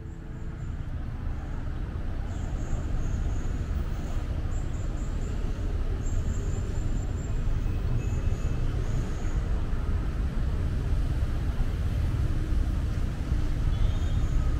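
City street ambience on a busy road: steady traffic noise with a heavy low rumble, fading in over the first two seconds.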